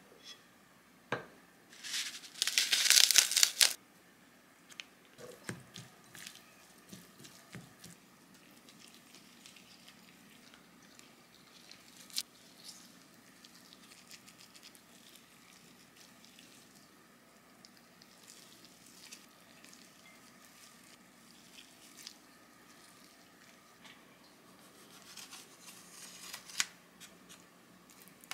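Plastic crinkling and tearing for about two seconds, a couple of seconds in, then faint kitchen handling sounds: a few light clicks and soft rustles, with another short crinkle near the end.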